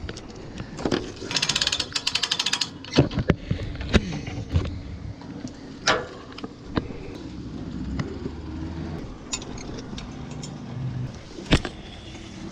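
Knocks and thumps of footsteps and gear on a fiberglass boat deck, with a quick metallic rattle about a second and a half in.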